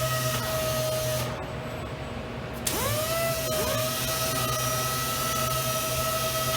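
Power sanders of a robotic furniture-sanding system running with a steady high whine over a hiss. About a second in the hiss drops away, and near the three-second mark a sander spins up twice with a rising whine before settling back to its steady pitch.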